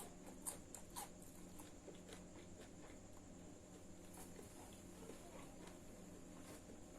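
Faint eating sounds: scattered soft clicks and smacks from chewing and handling food, a few sharper in the first second, over a steady faint hum.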